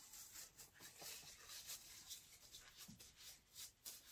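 Near silence: room tone with faint, scattered rustling and light scraping, like small handling sounds.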